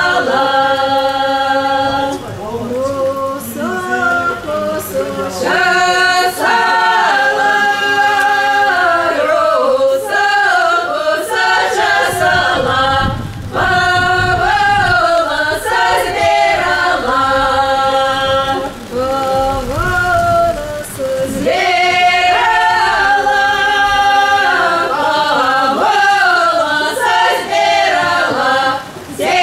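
Folk choir singing in long held phrases in several voices, with short breaks between phrases.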